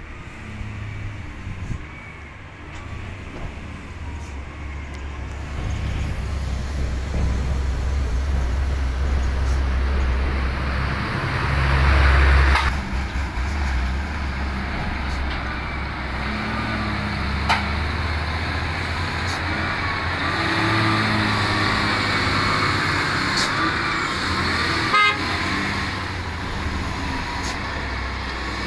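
Diesel engines of heavy trucks, chiefly the onion-loaded Hino FM1J, running as they come around a mountain bend and pass close by. They grow louder over the first half and are loudest about twelve seconds in. A truck horn sounds in the second half.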